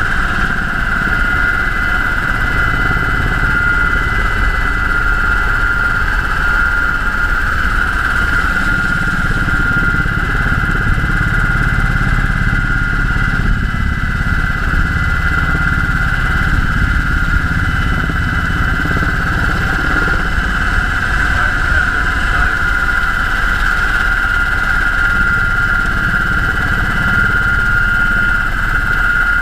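UH-60 Black Hawk helicopter in flight: its twin turboshaft engines and rotor drivetrain give a steady high whine over a constant low rumble, with no change in pitch or level.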